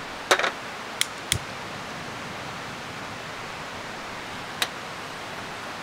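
Sharp clicks and clinks from handling a small camping gas stove as it is set up and lit, three in the first second and a half and one more near the end, over a steady hiss.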